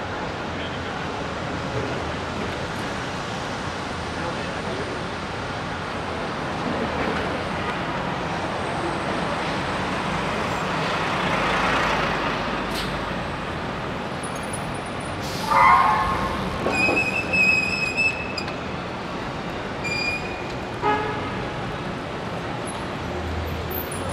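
Steady city street traffic noise around a moving bicycle, swelling as traffic passes about halfway through. A short horn honk comes about two-thirds of the way in, followed by a few brief high-pitched squealing tones.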